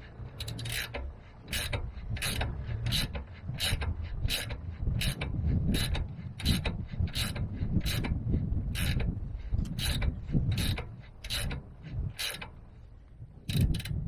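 Repeated mechanical clicking, about one and a half clicks a second at a steady pace, over a low rumble; it thins out for a moment near the end.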